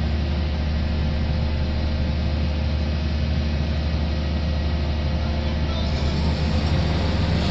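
Heavy engine of a pile-driving rig running steadily: a continuous low drone with no hammer blows.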